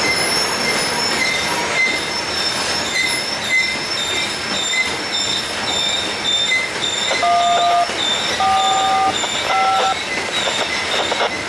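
Freight train of coal hopper cars rolling past, wheels rumbling on the rails with high squealing tones that keep coming and going. About seven seconds in, a horn sounds three short two-note blasts.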